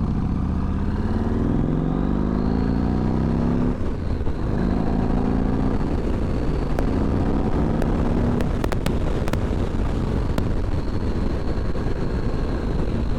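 Motorcycle riding audio picked up by a microphone inside a helmet with the visor down: heavy wind and road rumble under the engine, whose note rises several times as the bike accelerates through the gears. A few sharp clicks come in the second half.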